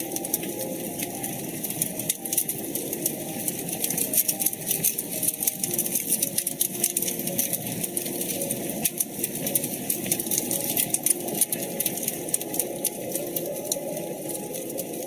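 Wood fire burning in a fireplace, crackling with many quick, irregular pops over a steady low rush.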